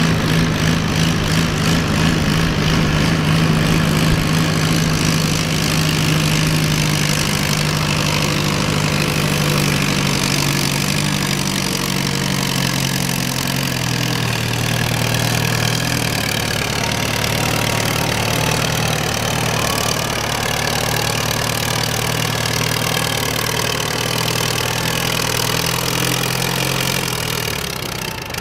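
Antique tractor engine running hard while pulling a weight-transfer sled. Its pitch steps lower about halfway through as the engine is pulled down under the load.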